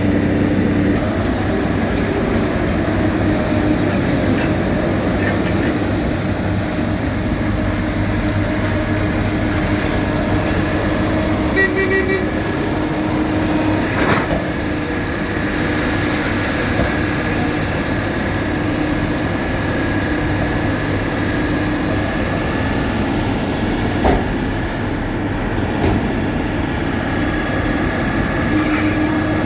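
Heavy road-paving machinery running steadily: a diesel engine drone with a thin steady whine over it. A short run of beeps a little before halfway, and a couple of sharp knocks later.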